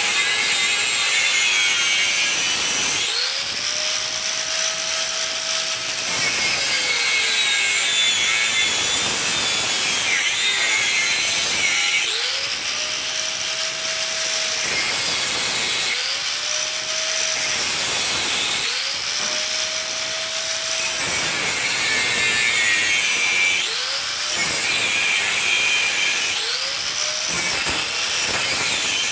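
Electric grinder working the steel of a chainsaw bar. Its motor runs continuously and rises to a higher whine about seven times as the load comes off, then drops back as it bites into the metal again.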